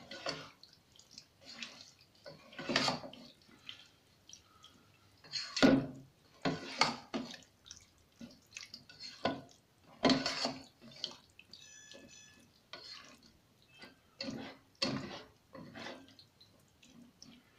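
Slotted spatula stirring and folding thick, creamy white-sauce pasta in a non-stick pot: irregular wet squelches and scrapes against the pan.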